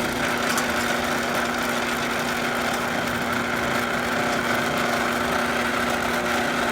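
Electric opener motor running with a steady hum as it drives in the other direction, testing that the swapped magnet limit switch stops it.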